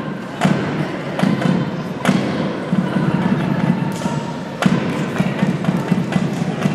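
Sharp slaps at irregular intervals, about one every second or so, from a handler's hand striking the floor to urge a dog pulling a loaded weight-pull cart. Under them runs a steady low rumble of the big hall.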